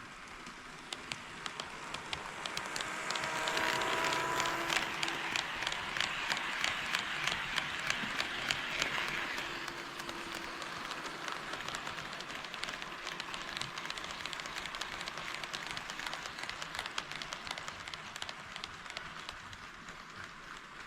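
HO-scale model train running on sectional track. Its running noise swells to a peak a few seconds in and then eases off, with a regular clicking of the wheels over the rail joints, about two clicks a second, while it is loudest.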